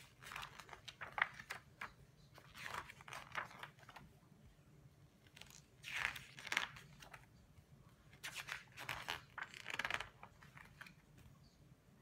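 Pages of a large glossy hardback book being handled and turned, the paper rustling and crinkling in several separate bursts.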